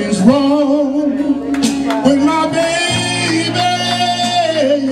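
Soul music: a singer holds long, wavering wordless notes over a steady bass line.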